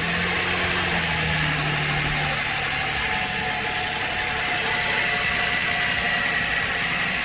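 2004 Nissan Quest's 3.5-litre V6 idling steadily just after being restarted with fresh oil following an oil change, with a faint high whine in the second half.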